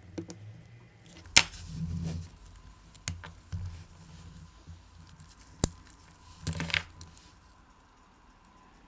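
Small metal watch parts and tools handled on a workbench during reassembly of a watch: a few sharp clicks and taps, with a cluster of them between about six and a half and seven seconds in, over soft handling noise.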